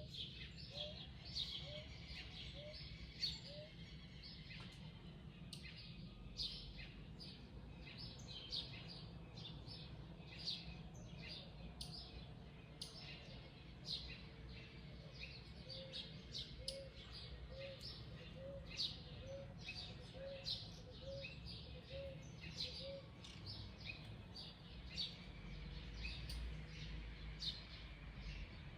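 Wild birds chirping in a morning chorus, many short high chirps overlapping throughout. A lower call of short notes repeats evenly, about one and a half a second, at the start and again in the middle. A steady low rumble runs underneath.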